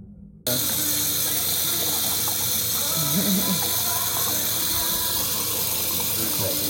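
Bar glass rinser spraying water up into an upside-down pint glass pressed down onto it: a steady hiss of water that starts abruptly about half a second in.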